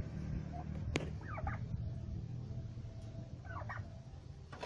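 Domestic turkeys calling: short bursts of a few quick notes, about a second and a half in and again near the end. A single sharp click comes about a second in, over a steady low rumble.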